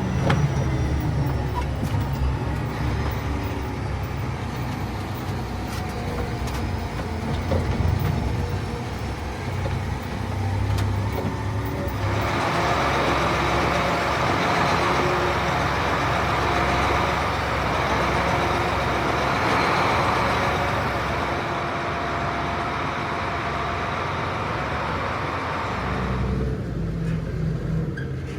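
Heavy truck's diesel engine running steadily, with a loud rushing noise that joins in about twelve seconds in and stops a couple of seconds before the end.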